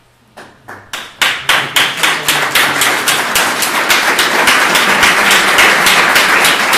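Audience applause, starting with a few claps about half a second in and swelling within a second into loud clapping that falls into an even rhythm of about three to four claps a second.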